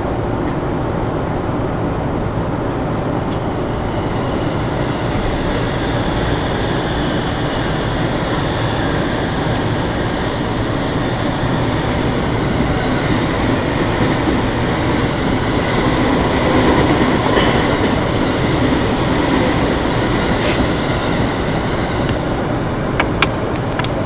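Electric commuter trains running past on the adjacent tracks, heard from inside a stopped train: a steady rumble of wheels and running gear with a faint high whine, swelling about two-thirds of the way through as a train goes by close. There are a few sharp clicks near the end.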